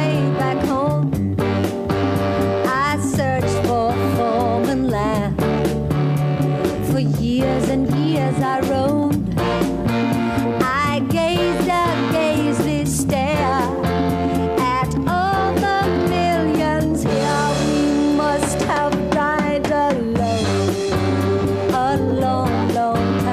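A woman singing a song with a band behind her: a drum kit keeping a steady beat under a bass line, her voice wavering with vibrato on held notes.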